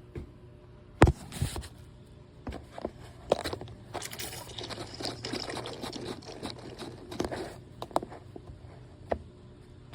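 Objects being handled: a sharp knock about a second in, then a run of clicks, scrapes and rattles, over a steady low hum.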